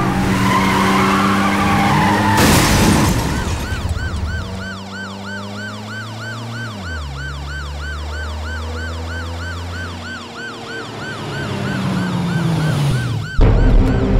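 Ambulance siren sounding a fast, repeating yelp of about three rising-and-falling sweeps a second. A brief rushing whoosh comes just before it, low held tones run underneath, and the siren cuts off abruptly near the end.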